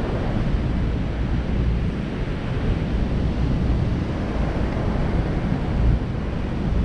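Strong wind buffeting the microphone in uneven gusts over the steady wash of breaking surf.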